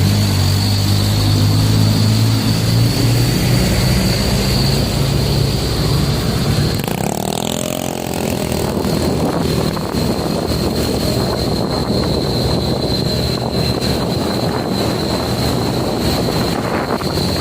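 Heavy truck's engine running on the road, with tyre and wind noise and a steady high whine above it. The engine's low hum is strongest for the first several seconds and then fades into the road noise.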